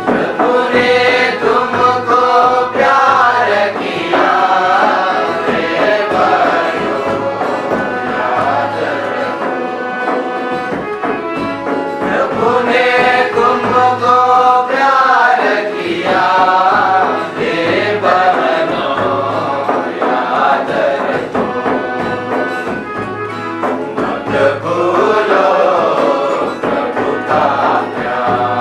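Voices singing a devotional hymn with instrumental accompaniment, in continuous melodic phrases over a steady low bass.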